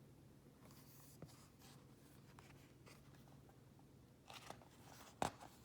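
Near silence: room tone with a faint hum, and a few small clicks and rustles about four to five seconds in, ending in one sharper click.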